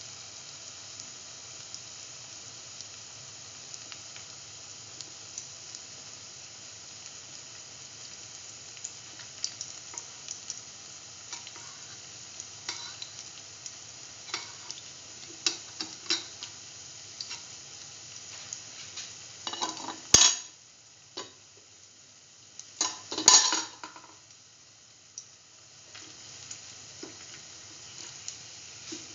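Split chickpea fritters frying in hot oil, sizzling steadily with scattered small taps of a metal spoon moving them in the pan. About two-thirds of the way through come two much louder clatters a few seconds apart.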